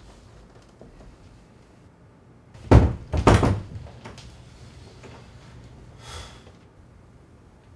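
A door banging: two heavy thuds about half a second apart, the second ringing on a little longer, then a fainter knock a few seconds later.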